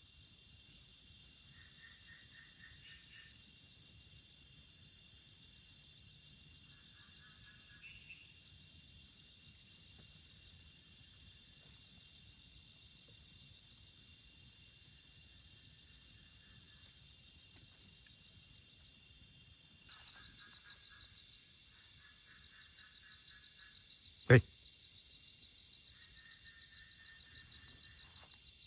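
Night chorus of crickets and other insects, a steady high-pitched trilling, with short pulsed chirping trills repeating every few seconds; the chorus grows fuller and higher about two-thirds through. A single sharp click about three-quarters through is the loudest sound.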